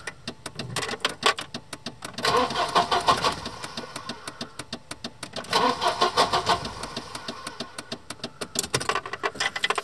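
Volvo 240's B230F four-cylinder being cranked by the starter motor at a steady rhythm, louder in two spells about two and five and a half seconds in, without catching. It cranks but will not fire because there is no spark: the crankshaft position sensor gives no signal, so the system relay's ignition contact never closes.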